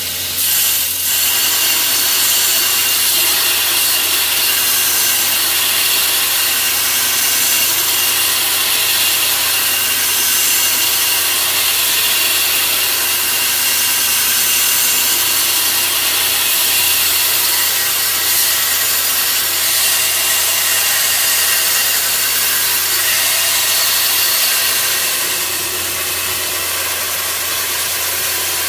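Belt grinder grinding a steel blank cut from a saw blade, pressed against the abrasive belt to shape it to a marked outline: a steady harsh hiss over the motor's hum. The grinding starts in earnest about a second in and eases slightly near the end.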